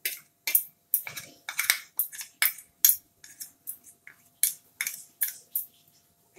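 A spoon scraping and knocking soaked semolina out of a small bowl into a mixing bowl: a quick run of short, sharp clinks and scrapes, about three a second.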